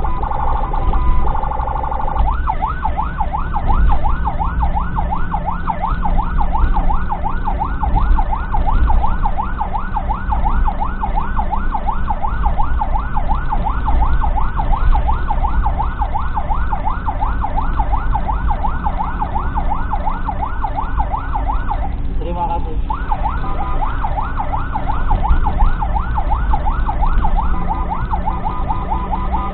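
Ambulance siren sounding from inside the vehicle's cabin. It holds steady two-tone notes at first, then switches about two seconds in to a fast, repeating yelp, which breaks off for about a second near the end before resuming. A steady engine and road rumble runs underneath.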